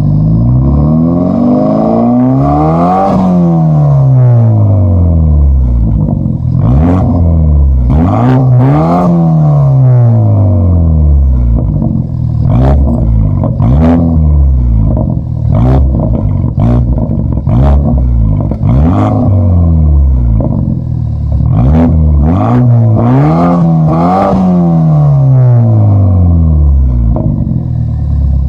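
BMW F30 328i xDrive's turbocharged 2.0-litre four-cylinder engine through an Ulter aftermarket exhaust, revved up and let fall back again and again. Long revs come near the start and near the end, with quicker, sharper blips in between.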